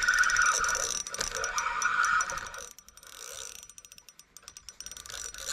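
Shimano Sahara spinning reel being cranked to reel in line: a fast whirring clicking of the gears and handle. The cranking stops about halfway through, with only a few clicks, then starts again near the end.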